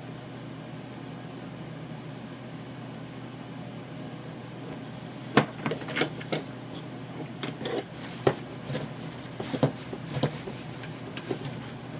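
Hands handling a hard plastic toy robot while pressing a sticker onto it: scattered light clicks, knocks and rubbing, starting about five seconds in, over a steady low hum.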